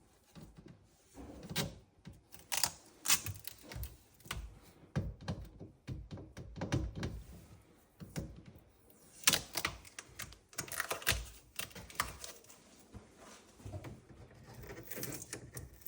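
Irregular knocks, taps and dull thuds of packaging being handled while a boxed fridge is unpacked.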